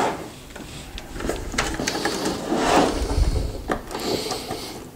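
Power-supply cables being handled and an 8-pin power plug pushed into a desktop motherboard socket: rustling and knocking of plastic against the metal case, with a few sharp clicks.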